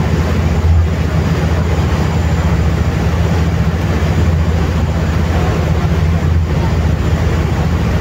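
Passenger ferry's engine running with a steady low drone, under the rushing noise of its churning propeller wake.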